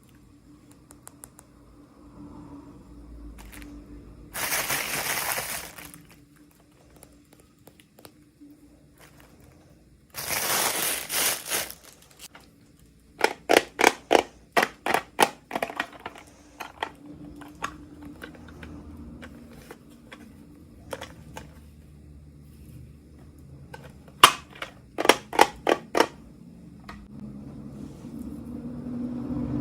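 Unboxing handling noises from toy packaging. Two short bursts of rustling or crinkling come about four and ten seconds in, then runs of quick sharp clicks, about a dozen in a row and a few more later.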